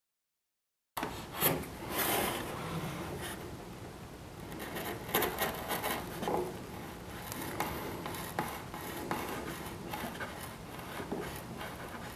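Serrated hinge-slot broach rasping and scraping as it is rocked back and forth down through the wooden cap of a model airplane aileron, cutting a hinge slot. It starts about a second in, with irregular scrapes and light clicks.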